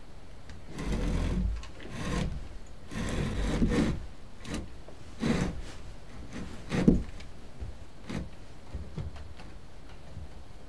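Old wooden spinning wheel creaking and scraping as it moves: a run of irregular wooden rubs and creaks, with a sharper knock about two-thirds of the way through.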